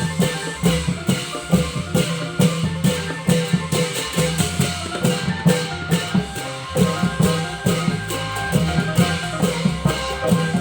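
Thai klong yao long-drum ensemble playing a fast, steady rhythm.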